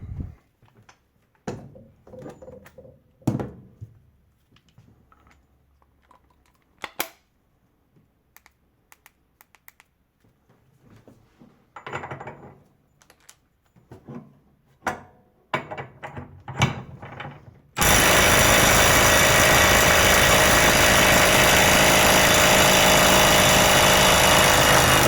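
Handling clicks and knocks, then a 12V cordless impact wrench hammering continuously for about seven seconds, starting loud and abruptly near the end and running at a steady level.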